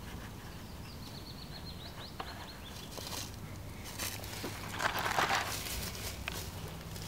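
A red fox rustling through grass and dry leaf litter as it forages, loudest about five seconds in. A small songbird sings a short series of high, thin notes from about a second in.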